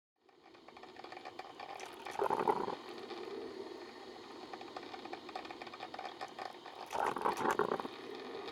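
A steady mechanical whirring that fades in at the start and swells louder twice, about two seconds in and about seven seconds in.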